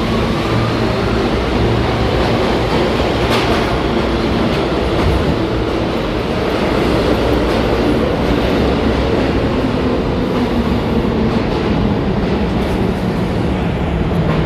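New York City Subway train moving through the station: continuous loud wheel-on-rail noise with clickety-clack and several steady humming tones, one sliding slightly lower near the end.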